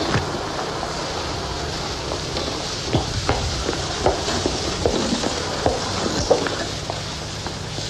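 Steady hiss and crackle of an aged television soundtrack, with a low hum and scattered faint clicks and ticks.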